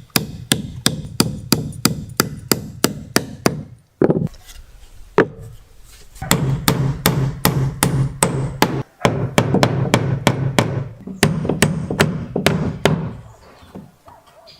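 Hammer driving nails into wood, steady blows about three a second, followed by a stretch of steady low hum with scattered knocks, then a few more hammer blows near the end.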